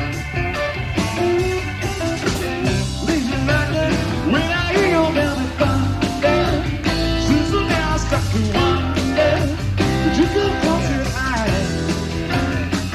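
Rock music: a band with guitar over bass and a steady drum beat, with a lead line bending in pitch through the middle.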